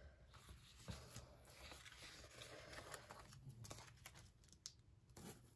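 Faint paper handling: sticker-book pages being turned and a sticker peeled off its sheet, with a few light scattered rustles and clicks.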